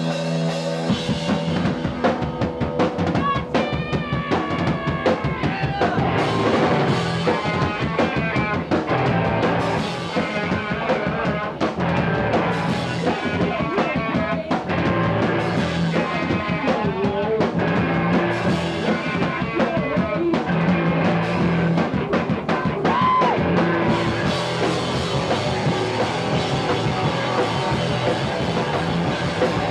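Rock music driven by a drum kit, with pitched instruments playing over a steady beat.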